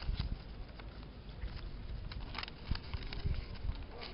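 Stiff paper crackling and rustling in a series of short irregular ticks as a folded origami butterfly is taken apart by hand, over a low rumble.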